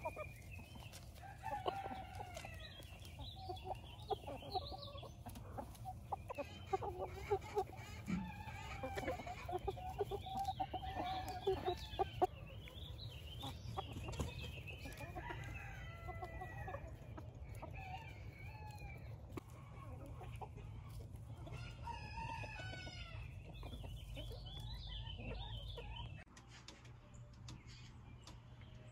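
Backyard chicken flock clucking over one another, with a rooster crowing partway through.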